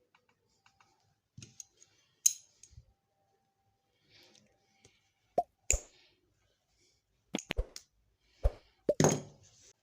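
Irregular sharp clicks and knocks of small hard parts and tools being handled and set down. A few come in the first half, more in the second half, and the loudest falls near the end.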